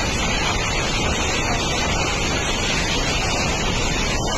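Storm-force cyclone wind blowing steadily: a dense, constant rushing noise that never lets up.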